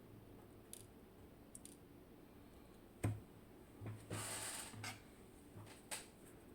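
Small clicks and one short scrape from the pins and parts of a disassembled dimple lock being handled, with a sharp click about three seconds in and another near the end.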